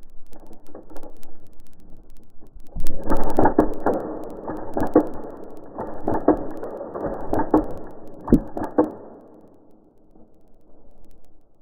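Rustling and scraping handling noise close to the microphone, with irregular knocks, loudest from about three to nine seconds in, then fading.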